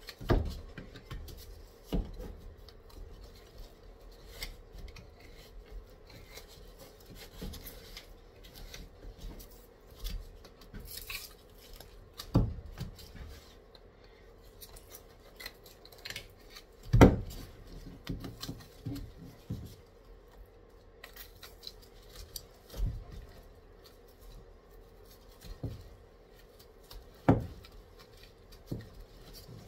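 Boning knife cutting and scraping through a deer front shoulder, the blade working along the bone. Scattered low thumps of the leg knocking on a plastic cutting board, the loudest about 17 seconds in, over a faint steady hum.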